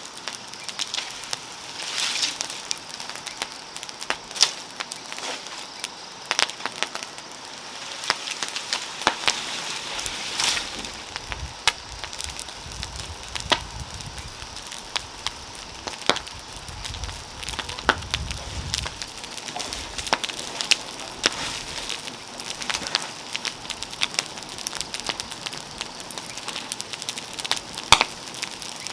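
Wood fire crackling, with many irregular sharp pops over a steady hiss.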